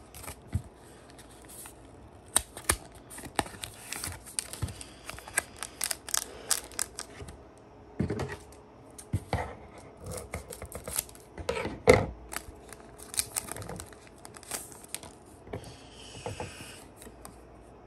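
A foil Pokémon booster pack wrapper being handled and opened, with irregular sharp crinkles and clicks, and a short rustle near the end as the stack of cards comes out.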